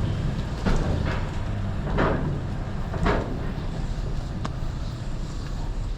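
Truck engine running at low speed, with several clunks and rattles spread through.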